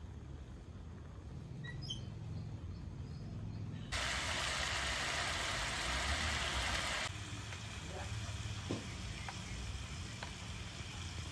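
Pork slices sizzling in hot oil on a grill pan, a steady frying hiss over a low rumble. The sizzle is suddenly much louder for about three seconds in the middle, then drops back, with a few light clicks of tongs near the end.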